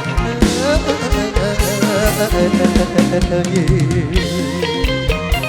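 Live band music in an instrumental break: a plucked-string lead melody with bends over a steady drum beat and bass.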